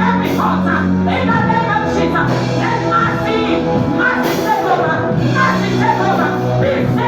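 Music with singing: voices singing over held low chords.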